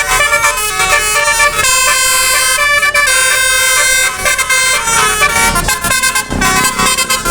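Telolet musical air horn on a Basuri bus playing a tune of held multi-note chords, the notes changing every second or so.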